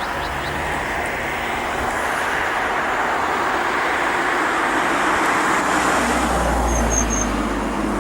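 Steady rushing noise of a heavy vehicle in motion, growing slightly louder, with a deep rumble coming in about six seconds in and a few brief high squeaks shortly after.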